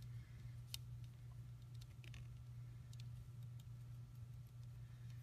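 Faint, scattered light clicks as fingers handle a small plastic doll and its clothes, over a steady low hum.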